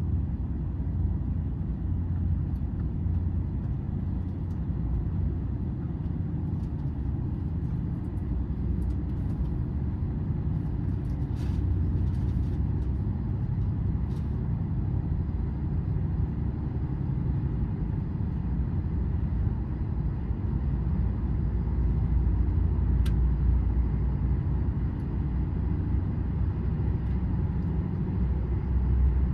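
Steady low rumble of a TGV running along the track, heard from inside the passenger car, with a few faint clicks and one sharp tick.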